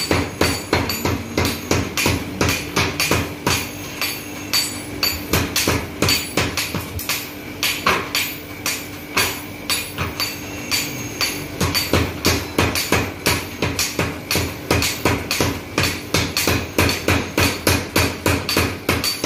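Mechanical power hammer forging a red-hot iron bar: a fast, even series of heavy blows, about three a second, over a steady hum.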